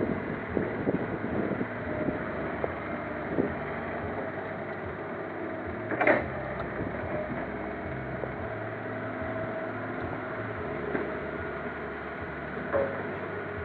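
Hydraulic excavator's diesel engine running steadily under load as it loads soil into a dump truck, with short knocks and clunks from the bucket and a louder clank about six seconds in.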